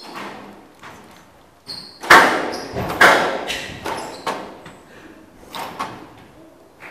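Squash ball cracking off rackets and court walls in a rally, a series of sharp hits with the loudest about two seconds in, echoing in a large hall. Short shoe squeaks on the court floor come between the hits.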